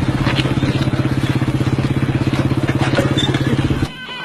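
An engine running steadily with a fast, even chugging pulse, cut off abruptly near the end.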